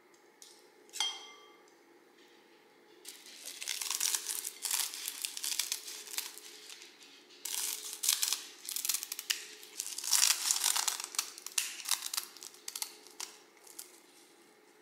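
Crisp sheets of dried seaweed being snipped with scissors and crumbled by hand over glass bowls: a dense dry crackling crinkle that starts about three seconds in and runs in two long spells with a short break halfway. About a second in, metal tongs clink once against a glass bowl, which rings briefly.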